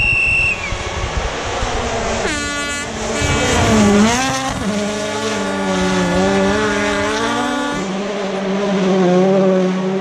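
A rally car's turbocharged engine passing at speed. About two seconds in the revs drop sharply off the throttle, then climb and fall again through gear changes as the car goes by. Near the end only a lower, steadier engine note is left.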